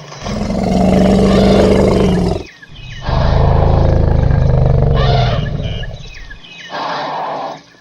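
Elephant calling: two long, loud, low calls, the second longer than the first, then a shorter call near the end.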